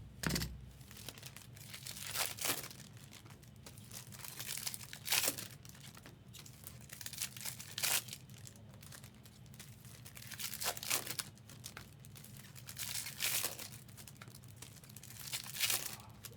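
Foil trading-card pack wrappers being torn open and crinkled by hand, in a run of short rustling bursts every second or two, over a steady low hum.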